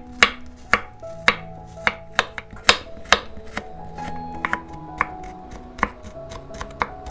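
Knife chopping on a cutting board: sharp, uneven strokes about two a second, over soft background music.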